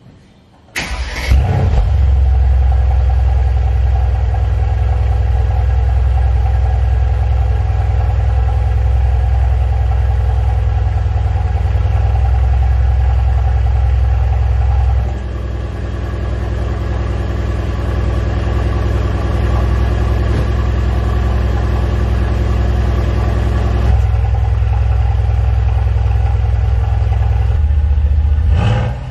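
Mercedes-AMG C63 S twin-turbo 4.0-litre V8 starting just under a second in and settling into a steady idle through its stock valved exhaust, the flaps held open by an aftermarket exhaust valve module. About halfway through the idle turns quieter and its tone changes as the exhaust valves are clicked closed, and the tone changes again later as they are toggled.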